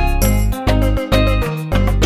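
Upbeat music with a steady beat: deep bass notes about twice a second under bright, chiming melody notes.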